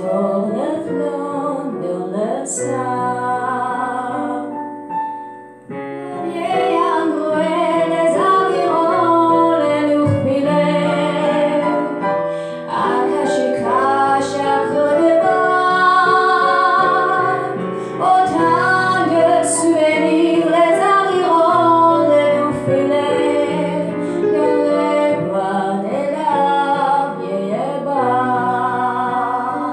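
A woman singing a song with vibrato, accompanied by a digital piano, with a short breath between phrases about five seconds in.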